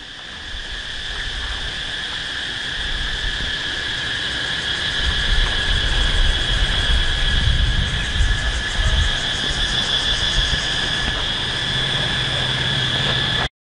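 Insects chirring in a steady, shrill drone, with a low rumbling noise underneath; the sound cuts off abruptly near the end.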